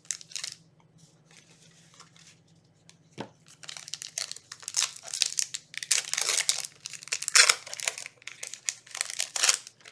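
Foil Yu-Gi-Oh booster pack wrapper being crinkled and torn open by hand, in repeated rustling tears that grow louder over the second half. There is a soft knock just after three seconds in.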